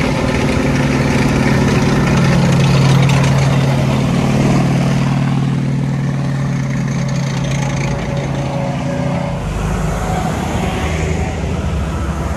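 WWII tracked armour driving past, a Sherman tank and then a tank destroyer, with a steady low engine drone that is loudest about three seconds in and fades after about eight seconds. From about nine seconds on, a Willys jeep's lower engine rumble comes in.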